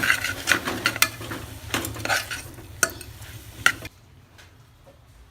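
Onion, tomato and ground-spice masala being stirred in a pressure cooker, with repeated sharp scrapes of the stirring utensil against the pot over a light sizzle. The stirring stops about four seconds in.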